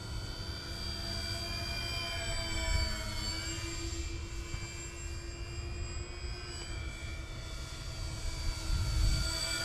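Twin electric motors and propellers of an RC Grumman HU-16 Albatross foam model in flight, a steady whine that bends up and down in pitch a couple of times as it flies around. Wind rumbles on the microphone, gusting near the end.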